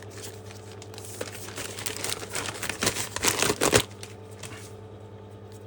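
Plastic packaging crinkling and rustling as new replacement tires are handled. The rustling comes in a run of bursts that gets louder and busier, then stops about four seconds in.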